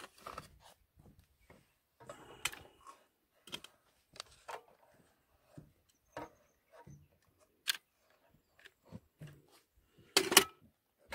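Sporadic light clicks, taps and rustles of handling, with a louder clatter about ten seconds in.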